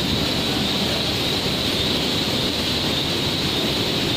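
Steady drone of workshop machinery or ventilation, with a constant high hiss on top.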